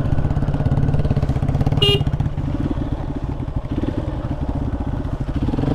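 Hero Xpulse 200 4V's single-cylinder engine running steadily at low revs as the bike rolls slowly, an even rapid thrum. There is a brief high squeak about two seconds in.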